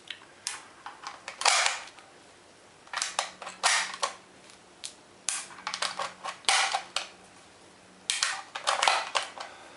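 Cartridges being pressed one at a time into a rifle magazine by hand: about five clusters of sharp metallic clicks and scraping, with short pauses between rounds. The magazine is a little rough to load.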